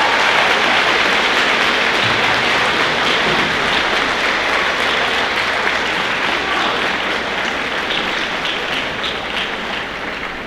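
Large audience applauding, a dense, steady clapping that slowly fades and thins into separate claps near the end.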